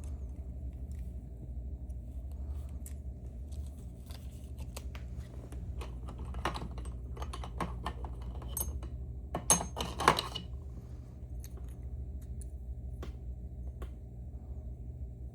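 Small metal pick and tension tool working inside a Mauer NW4 dimple lock: scattered light metallic clicks and scrapes, with a flurry of louder clicks about six seconds in and again around ten seconds in. A steady low hum runs underneath.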